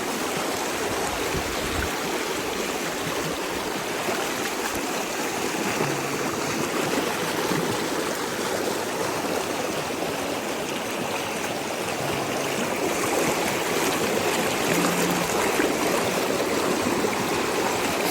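River water flowing, a steady rushing noise that grows slightly louder in the second half.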